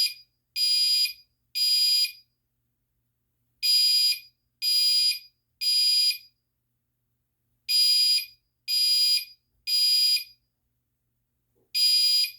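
Fire alarm sounder going off after the manual pull station is pulled. It beeps loudly in groups of three, with a pause after each group, about every four seconds: the temporal-three evacuation signal.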